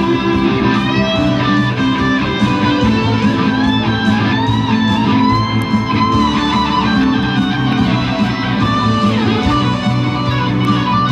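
Live electric guitar playing alongside a hichiriki, the double-reed gagaku pipe. Sustained melody notes glide and bend in pitch over the guitar.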